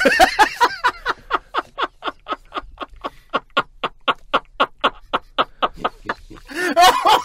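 A person laughing hard in a long run of short, evenly spaced 'ha' bursts, about five a second. Talk resumes near the end.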